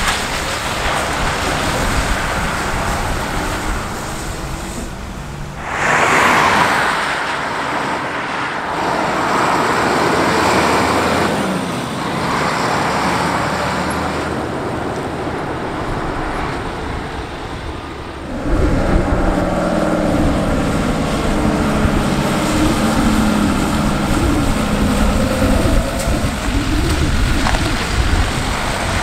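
Diesel box trucks driving and turning, engines running under a steady hiss of road and tyre noise. From about two-thirds in, a nearer engine hums low and steady as a cab-over truck turns onto a wet road.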